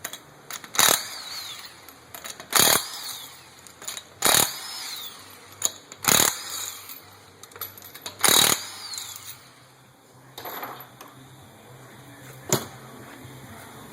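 Impact wrench spinning the lug nuts off the wheel one after another: five short loud bursts about two seconds apart, each trailing off in a brief rising-then-falling whine. A couple of quieter knocks follow near the end.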